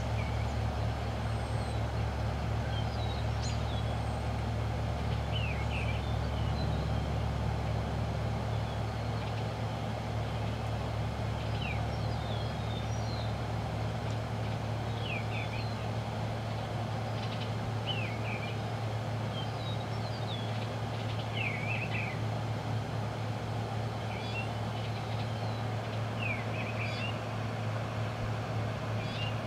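Small songbirds giving short, high chirps every second or two over a steady low rumble of road traffic.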